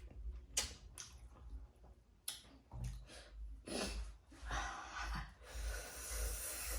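Close-miked mouth sounds of a person chewing a meal of pork and rice. A few sharp smacks come in the first two or so seconds, then longer stretches of noisy chewing.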